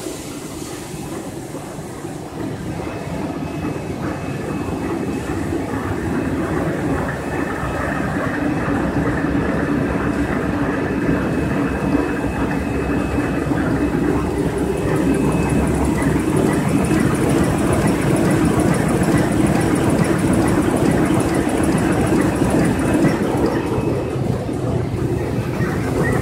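Automatic facial tissue folding machine running: a steady, dense mechanical clatter from its rollers and folding mechanism, growing louder over the first several seconds and then holding steady.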